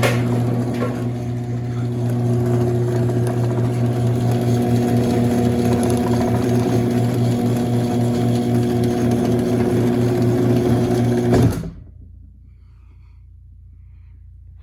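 Chamberlain C450 chain-drive garage door opener running, its motor humming steadily as it drives the door along the rail, then stopping about eleven and a half seconds in.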